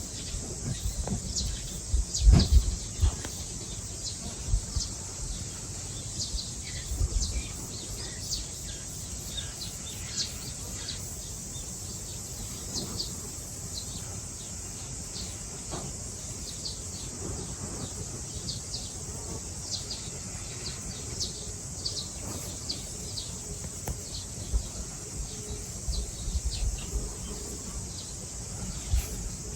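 Small birds chirping in short, scattered calls over a steady outdoor hiss, with a few low thumps here and there.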